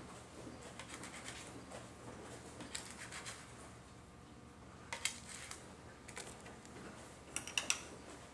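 A spatula scraping and tapping as chemical crystals are scooped into a crucible: faint scratches and light ticks, with a sharper click about five seconds in and a few quick clicks near the end.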